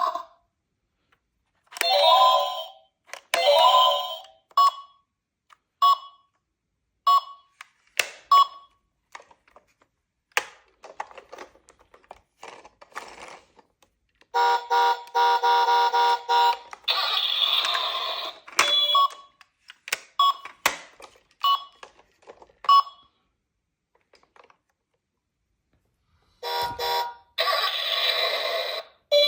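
Battery-powered toy emergency vehicles playing electronic sound effects: a run of short beeps and chimes with silences between them, and a longer steady electronic tone pattern in the middle and again near the end. Scattered short clicks fall between them.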